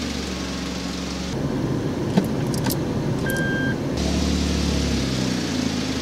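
Toyota Aygo's small car engine running as the car moves slowly. The sound turns rougher from about one to four seconds in, then settles back to a steady run. A few light clicks and a short high-pitched beep come about three seconds in.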